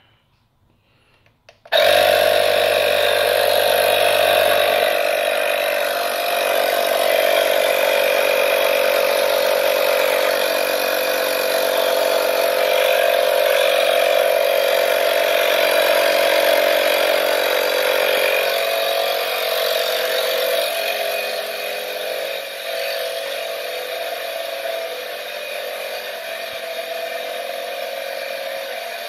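Battery-powered portable tire inflator's compressor switching on about two seconds in and running steadily as it pumps up a bicycle tire, getting somewhat quieter in the second half.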